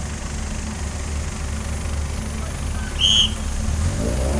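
Off-road trial buggy's engine idling steadily, then starting to rev up near the end. A brief high-pitched tone sounds about three seconds in.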